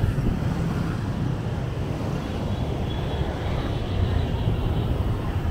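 Steady low rumble of busy city street traffic, with vehicles passing continuously.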